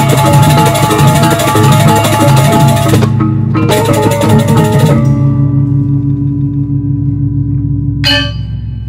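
Balinese gamelan music: dense, fast metallophone and drum playing that breaks off about five seconds in. A long ringing tone lingers after it, and a single bright metallophone stroke sounds near the end.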